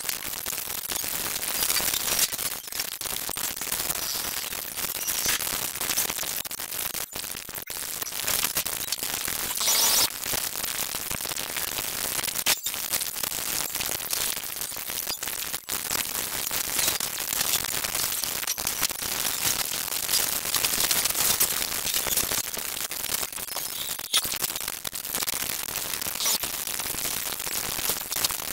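A cartoon soundtrack of dialogue, music and effects, sped up so drastically that it becomes a dense, high hiss flecked with clicks and brief dropouts, with no words to be made out.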